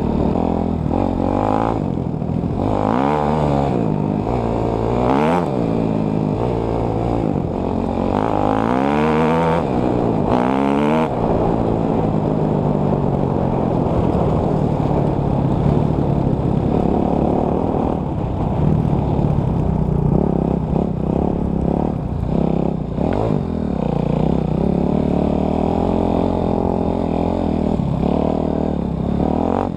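Enduro dirt bike engine being ridden hard, revving up and down through the gears. Its pitch climbs and drops several times in the first eleven seconds or so, then holds steadier with smaller rises and falls.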